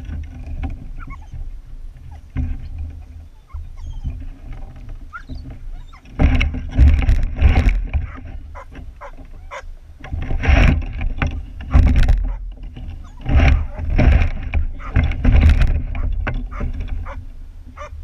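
Sled dogs barking and yelping in loud repeated bursts from about six seconds in, the excited din of a team held at the line before a run. A low wind rumble on the microphone runs underneath.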